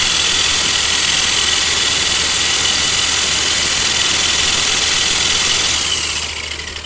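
Electric drill running at full speed, spinning a lampshade on its chuck, a steady motor whine. About six seconds in the trigger is let go and the drill winds down, its whine falling in pitch.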